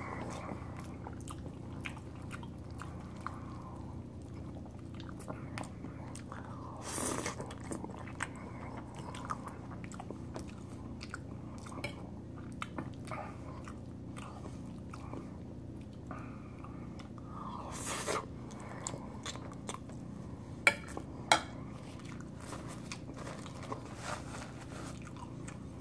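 Close-miked chewing and mouth sounds of someone eating chicken alfredo spaghetti, quiet and wet, over a steady low hum. A few brief louder noises come around a quarter and two-thirds of the way in, and two sharp clicks a little later.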